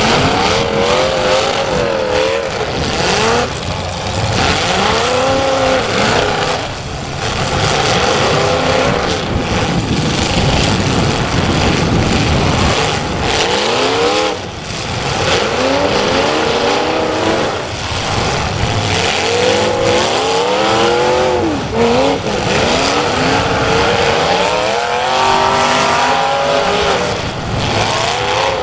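Several demolition derby cars' engines revving hard, their pitches sweeping up and down over one another again and again.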